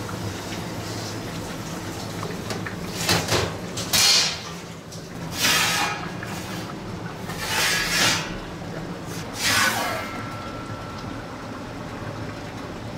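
Perforated metal lid of a tandoor oven scraping and knocking on the oven's steel rim in several short swishes, each falling in pitch, over a steady low hum.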